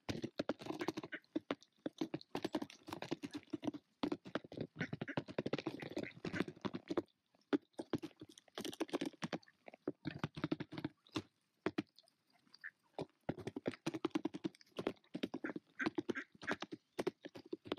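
Female mallard pecking seed off a plastic tote lid: fast runs of bill taps and clicks on the plastic, in bursts with brief pauses.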